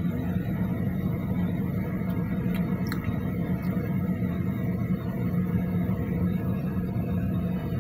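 Car running at low speed, heard from inside the cabin: a steady low drone of engine and road noise, with a couple of faint ticks about two and a half to three seconds in.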